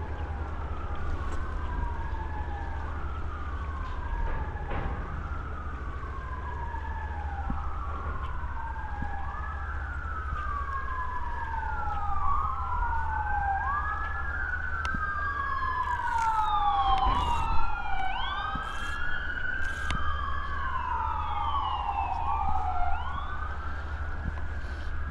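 Emergency vehicle sirens wailing, pitch sweeping up and down about every two seconds; about halfway through a second siren joins out of step, and a higher-pitched one is heard near the end.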